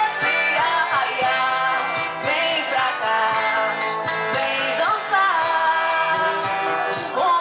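Festa junina band music: an instrumental passage with a sliding lead melody over a steady beat.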